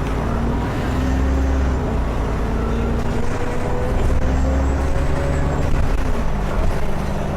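ADL Enviro400 double-decker bus's diesel engine pulling under acceleration, rising in pitch twice and dropping back each time as the gearbox changes up. A faint high turbocharger whistle rises along with it.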